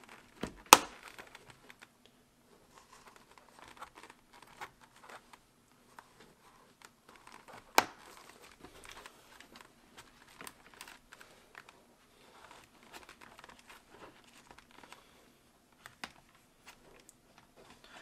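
Fabric and foam of a motorcycle helmet's cheek pad and liner rustling and crinkling as they are pressed into the shell. Two sharp snaps stand out, one under a second in and another about eight seconds in, as the cheek pad's clips click into place.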